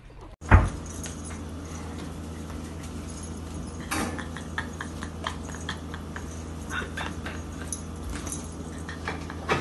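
A dog and a cat scuffling in play on carpet: scattered light knocks and clicks over a steady low hum. A sharp thump comes about half a second in and a louder knock about four seconds in.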